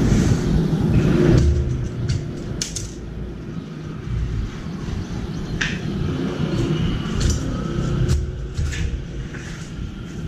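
Wind rumbling on the microphone for about the first second and a half, then a steady low outdoor hum with a few short, faint high ticks and chirps scattered through it.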